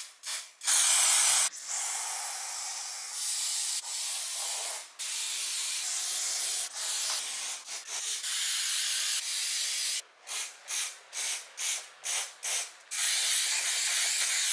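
Aerosol spray paint can hissing as black paint is sprayed onto a sneaker: long sprays lasting a few seconds, broken by a quick run of about eight short bursts about two-thirds of the way through, then a long spray again.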